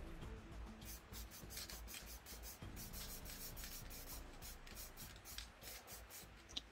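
Quick rubbing and scratching strokes on glossy photo paper, a few a second, from a hand-held tool worked over the wet spray paint, starting about a second in and ending with one sharper tick.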